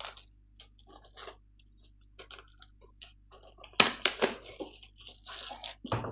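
Plastic wrap crinkling and crackling as it is torn off a hard plastic tool case, with scattered small crackles, a loud burst of crackling about four seconds in, and a low knock near the end.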